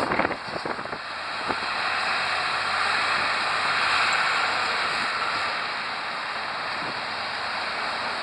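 Road traffic passing on a busy multi-lane street, a steady rush of cars that swells and eases off a little. A few sharp knocks come in the first second or so.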